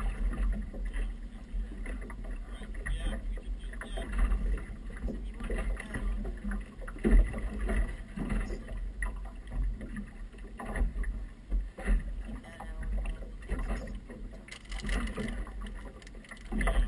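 Wind buffeting the microphone in uneven gusts, with water splashing and slapping against the hull of a small outboard boat on choppy water.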